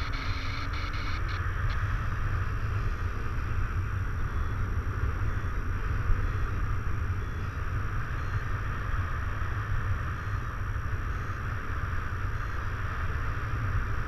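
Wind rushing over the camera microphone of a paraglider in flight: a steady low rumble with a hiss above it. A few quick ticks come in the first two seconds.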